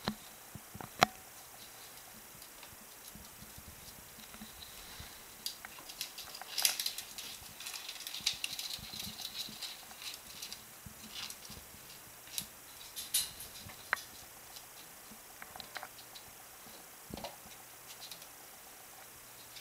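Black-tailed prairie dog's claws scratching and pattering on plastic pipes and a parquet floor as it crawls in and through them. Scattered clicks and scrapes, with a sharp click about a second in and a longer spell of scrabbling about a third of the way through.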